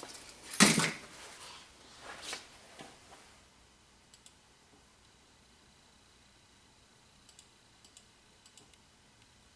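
A sharp knock about half a second in and a second, lighter knock about two seconds later, with some handling noise, then a few faint clicks.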